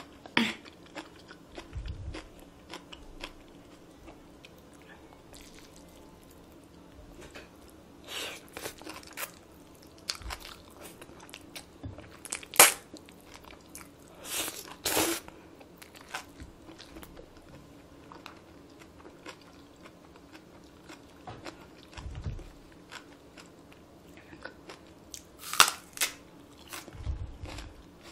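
Close-miked eating sounds: chewing and slurping cold spicy bibimmyeon noodles. A handful of short, loud slurps or bites stand out over quieter chewing, the sharpest one about halfway through and another near the end.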